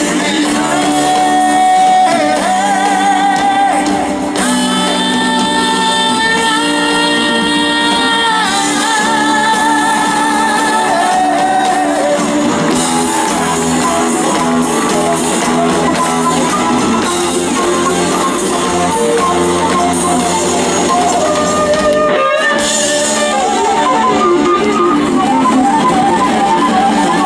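Southern rock band playing live on stage through a PA: electric guitars, bass, drums and keyboards with sung vocals. There are long held notes in the first part, and busier guitar lines take over about halfway through.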